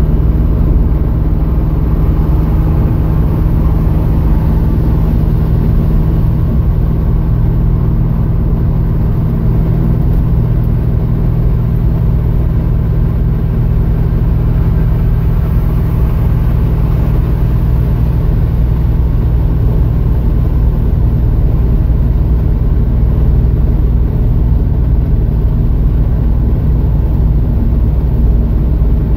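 Plymouth Scamp cruising at steady highway speed, heard from inside the cabin: a constant low engine and road drone, with no rise or fall in engine speed.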